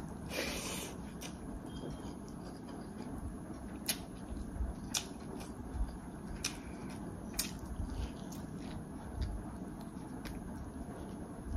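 A person chewing food close to the microphone. There is a short rustling burst near the start, then repeated sharp clicks about once a second from the middle on.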